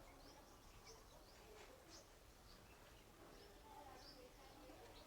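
Faint, scattered bird chirps, many short high notes over a quiet background.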